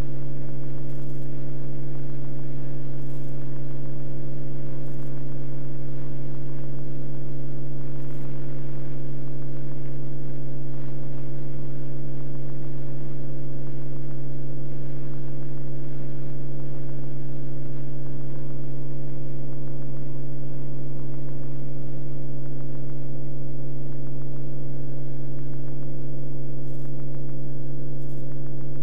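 Beechcraft Bonanza F33's piston engine and propeller droning steadily at constant power, heard from inside the cockpit.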